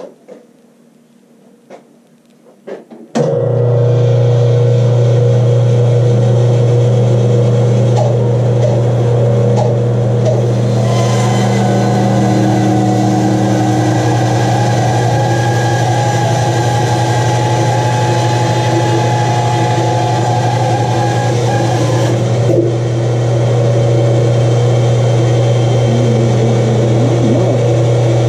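A few small clicks, then a Rikon bandsaw is switched on about three seconds in and runs with a steady hum. From about eleven seconds in a higher hiss joins it as the blade saws into a chunk of log.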